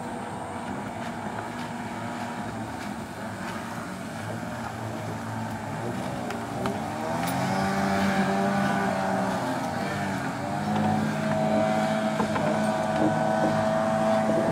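Outboard motor of a racing river boat running at high revs. About halfway through it grows louder and its pitch bends up and back down as a boat passes close, then holds a steady note near the end.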